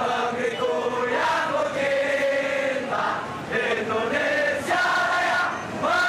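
A crowd of demonstrators chanting in unison in drawn-out phrases of about a second each, many men's voices together.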